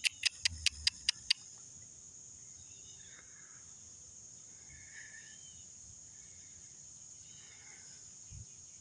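Steady high-pitched drone of insects in the woods, with a quick run of about seven sharp clicks in the first second and a half and a few faint bird chirps later.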